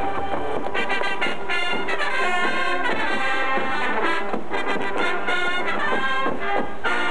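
Marching band playing a march on brass instruments.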